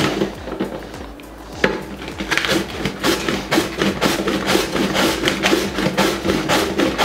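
White cabbage being shredded on a hand cabbage slicer with a V-shaped steel blade: repeated rasping strokes as the half head is rubbed back and forth across the blade. The strokes start lightly, then come steadily about three a second from about a second and a half in.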